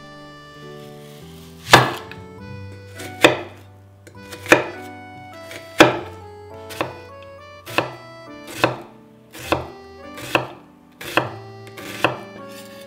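Chef's knife slicing a red onion on an end-grain wooden cutting board: about eleven crisp cuts, each ending in a knock of the blade on the wood. They start a couple of seconds in, about a second apart, and come quicker toward the end. Soft background music plays underneath.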